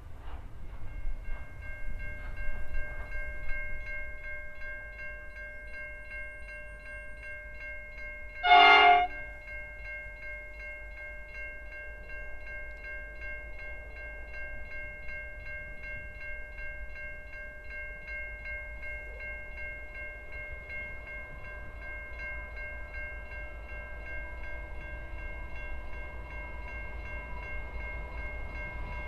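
An approaching NR class diesel locomotive sounds one short horn blast about a third of the way in. Under it runs a steady, rapidly pulsing ringing of several high tones, and the rumble of the train builds slowly near the end.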